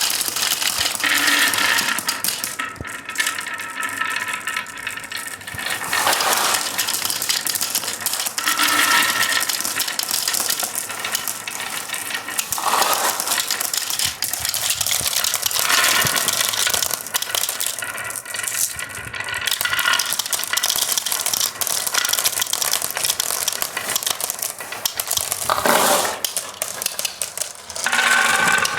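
Marbles rolling and clattering down a wooden HABA marble run, a continuous dense stream of clicks and clinks with brief ringing tones as they knock against the track and each other.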